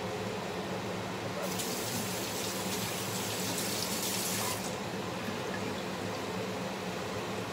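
A kitchen tap runs into the sink for about three seconds, starting about a second and a half in, over the steady hum of the stove's range hood fan.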